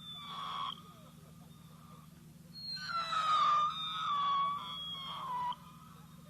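Three-stage whistle firework whistling in repeated phrases, each stepping down in pitch in stages with a yelping, siren-like wail. One phrase ends about half a second in and another runs from about two and a half to five and a half seconds, over a steady low hum.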